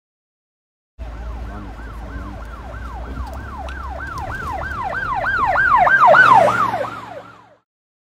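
Brazilian police car siren sounding in quick falling sweeps, about three a second, heard from inside the car over the low engine rumble. It starts about a second in, grows louder, then fades out near the end.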